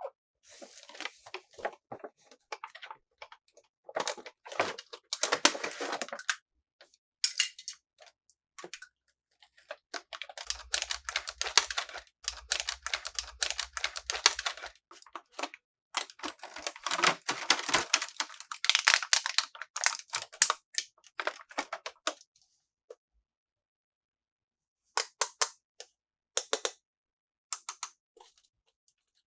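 Small hard plastic toy pieces being handled, giving runs of quick clicks and rattles with short pauses between them.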